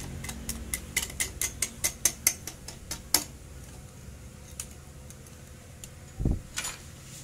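Yamaha NMAX 155 cam timing chain clicking link by link against the metal as it is drawn up through the cylinder block's chain tunnel: a quick run of a dozen or so sharp clicks over about three seconds. A dull thump comes near the end.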